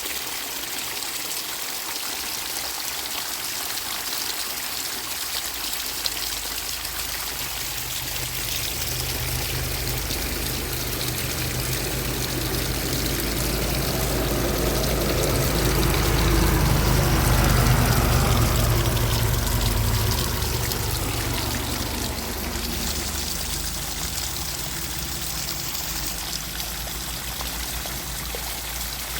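Steady rush of flowing water. A vehicle's engine grows louder and then fades away as it passes, loudest a little past the middle.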